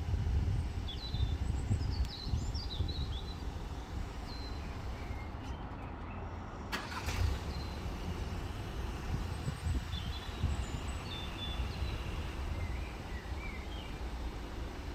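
Outdoor background: a steady low rumble with small birds chirping and twittering on and off. There is one sharp click about seven seconds in.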